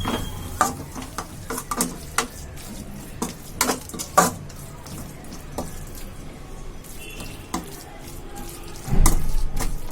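A spoon stirring and scraping a thick onion-tomato masala frying in a pan, with a low sizzle and irregular clacks of the spoon against the pan, louder and busier about nine seconds in.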